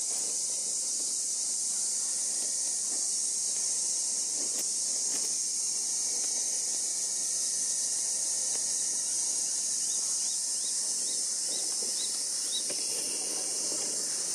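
A steady, high-pitched chorus of summer cicadas, with a run of short, rising high peeps about ten to twelve seconds in.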